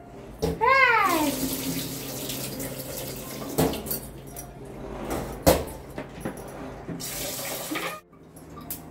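Kitchen tap running into a steel pot of rice at the sink as the rice is rinsed, with a few sharp knocks of the pot. The water is shut off abruptly near the end. A short high voice rises and falls once just as the water starts.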